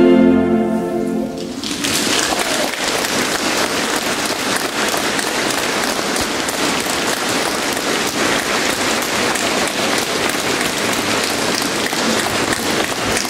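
The final chord of a choir and orchestra dies away in the first second or so, then the audience applauds steadily.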